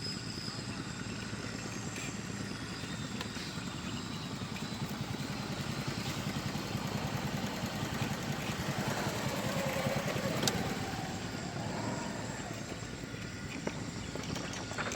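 A small engine running steadily, growing somewhat louder through the middle and easing off near the end.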